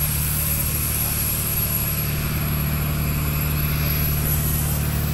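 A steady low engine drone that holds an even pitch and level throughout, with a constant hiss over it.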